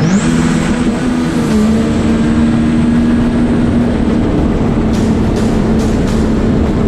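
Personal watercraft (jet ski) engine revving up sharply at the start, then running at steady high revs with a thin high whine above it.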